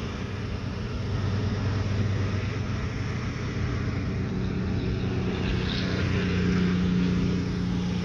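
A steady motor drone, with a second, higher hum joining about halfway through.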